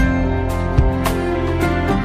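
Background music: a slow, tender instrumental passage with sustained held notes over a regular beat.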